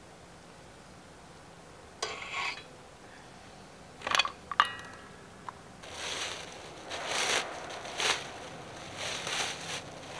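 Objects being handled: a short rustle about two seconds in, then a few sharp clinks, one ringing briefly, followed by repeated bursts of rustling and crunching.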